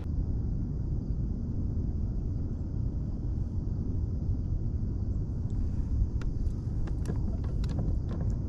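Wind buffeting the microphone, a steady low rumble, with a scatter of small clicks and ticks in the last few seconds.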